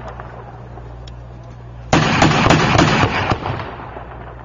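A short burst from the LAV-25's 25 mm M242 chain gun begins about two seconds in. The shots come about three a second, and their reports echo and die away. Before the burst, the echo of the previous burst fades over a steady low hum.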